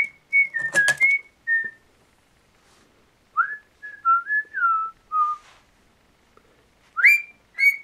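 Cockatiel whistling a tune: clear whistled notes gliding up and down, in three short phrases with pauses between.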